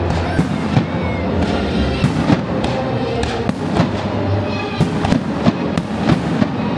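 Aerial fireworks shells bursting in a quick, uneven string of bangs, several a second at times, over music with held notes.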